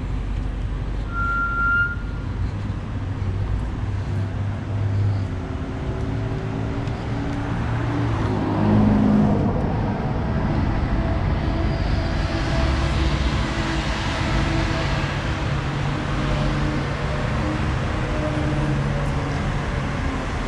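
City street traffic: cars driving past with a steady engine hum and tyre noise, swelling louder as a vehicle passes about halfway through.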